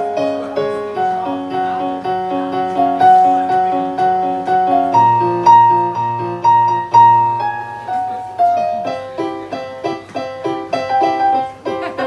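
Solo piano accompanying a silent film: a melody in held notes over repeated lower chords, with a deep bass note held for a couple of seconds around the middle, turning to quicker short repeated chords near the end.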